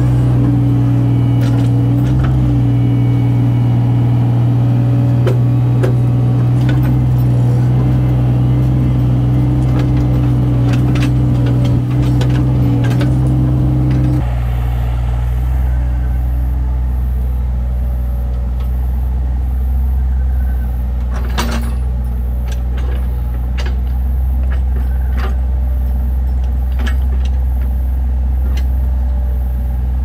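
Diesel engine of a compact earthmoving machine running steadily, with scattered clicks and knocks over it. About halfway through, the engine note drops abruptly to a lower pitch and holds there.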